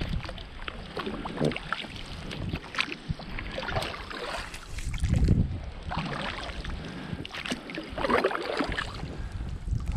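A paddle dipping and pulling through shallow water as a small boat is rowed along: repeated swishing, splashing strokes at an uneven pace.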